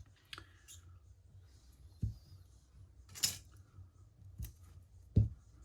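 Scattered small clicks and soft knocks from handling double-sided adhesive tape and scissors at a workbench, with a short rasping snip a little after three seconds and the loudest knock near the end.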